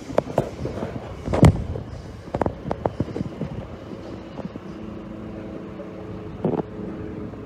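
Passing electric train: irregular clunks and knocks of the wheels running over rail joints and points, the loudest about a second and a half in. From about four seconds in a steady low hum sets in under it.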